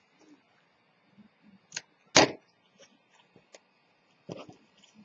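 A few light knocks and taps of scissors and a cardstock box handled on a cutting mat, with one louder knock just after two seconds in and a short cluster of taps near the end.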